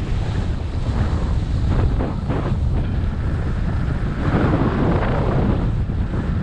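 Wind buffeting the microphone of a camera worn by a skier going downhill, over the hiss and scrape of skis on groomed snow. The hiss swells about four seconds in.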